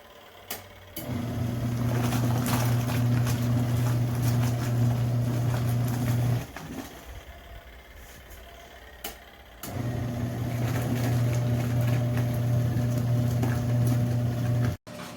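Auertech portable twin-tub washing machine's electric motor running with a steady hum in two spells of about five seconds each, with a pause between, and a click just before each start.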